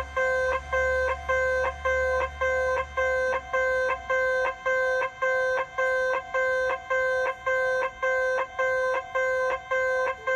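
Electronic railway level-crossing warning bell ringing in a steady, repeated ding, about two strokes a second. A low rumble fades out over the first few seconds.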